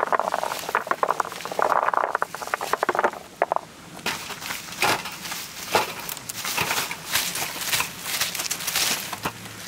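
Spiny chestnut burrs and their leaves rustling and crackling as they tumble out of a basket onto a tray, a dense run of crackles for the first three seconds. After that come scattered separate rustles and light knocks as burrs are dropped onto the tray a few at a time.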